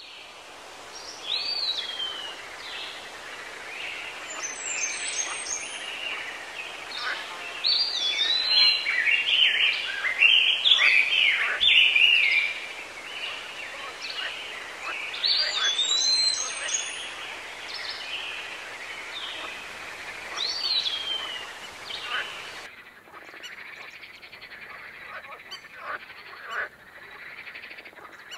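Small songbirds singing: many short whistled phrases that swoop up and down, several birds overlapping. Near the end the sound turns quieter and duller, with only faint calls.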